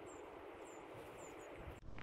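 Steady outdoor hiss, most likely wind, with faint short high chirps about twice a second from a small bird. The sound changes abruptly near the end.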